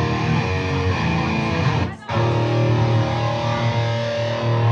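Amplified electric guitars and bass playing loud chords that ring out. They stop sharply about two seconds in, then come back in with a long held chord.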